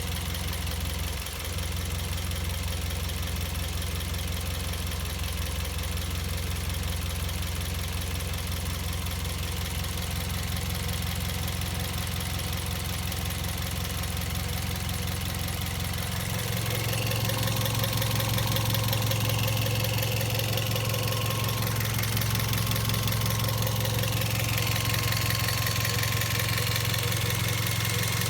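Second-generation Toyota Vios engine idling, with the loud chirping from the engine bay. About sixteen seconds in, the engine note steps up and gets a little louder.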